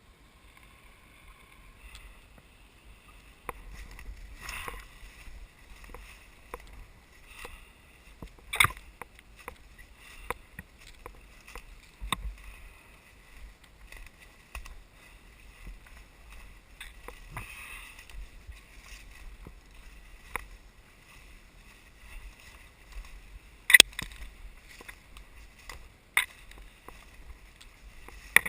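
Footsteps through forest undergrowth, with leaves and twigs crunching and snapping at irregular intervals. Two louder sharp cracks stand out, one about a third of the way in and one near the end.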